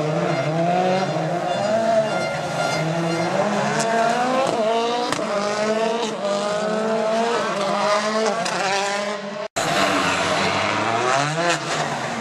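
Rally car engines at full throttle, revving up in pitch and dropping back through repeated gear changes. An abrupt cut about nine and a half seconds in leads to another car accelerating hard.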